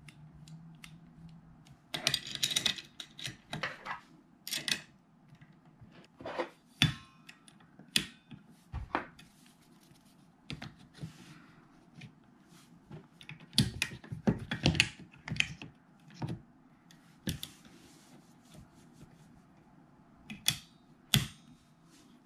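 Steel fixture parts, a locking clamp and a stone block being handled and fitted together: irregular clicks, clinks and knocks of hard parts against each other, with a few sharper clunks.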